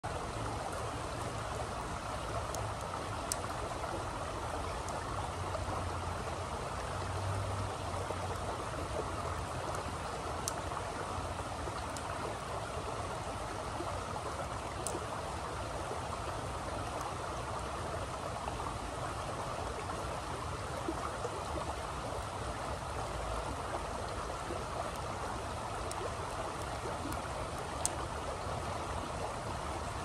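Shallow creek water running over rocks in a steady, even rush. A few faint, sharp clicks are heard now and then.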